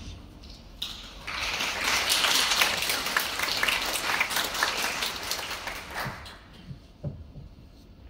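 Audience applause in a theatre, swelling about a second in and dying away about six seconds in, in a break in the orchestral music. A couple of soft low thuds follow near the end.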